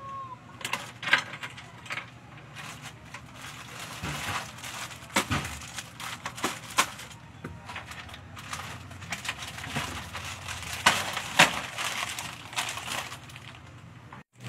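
Plastic product packets rustling and crinkling as they are handled, with irregular sharp clicks and knocks of items being picked up and set down on a counter.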